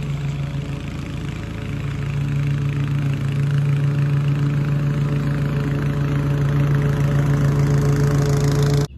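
Walk-behind gas lawn mower running at a steady speed while mowing, growing louder as it comes closer, and cutting off abruptly near the end.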